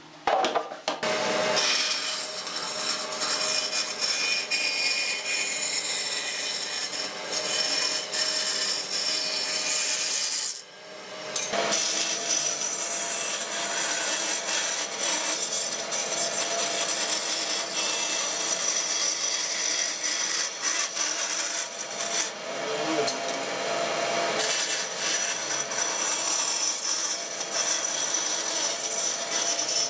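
Scroll saw cutting a curve in a pine board: the blade's rapid strokes rasp through the wood over a steady motor hum. It starts about a second in and drops out briefly at about ten seconds before resuming.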